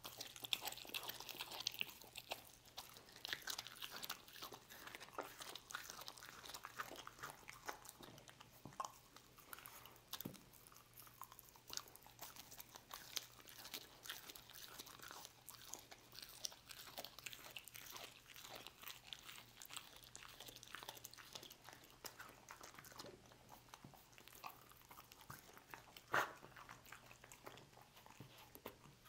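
Dog chewing and biting pieces of roast beef, a steady run of small wet clicks and crunches as it works the meat. One louder snap comes near the end.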